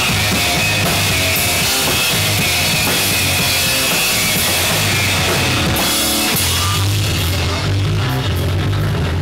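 Post-punk band playing live: electric guitars and a rock drum kit with cymbals, over steady low notes. About three-quarters of the way in the cymbal wash drops away and the low notes carry on.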